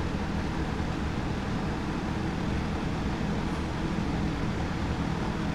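Old Sears 20-inch two-speed box fan running steadily on low: an even rush of air over a low motor hum, not loud at all. The motor does not sound as it should, which the owner puts down to worn bearings.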